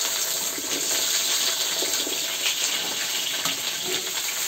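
Loud, steady sizzle of freshly added cut potatoes frying in hot oil in a karai (wok).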